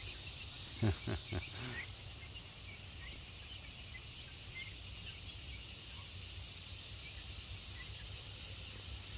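Steady high drone of insects, with scattered faint high peeps from the chicks and turkey poults. About a second in, three short, louder low sounds.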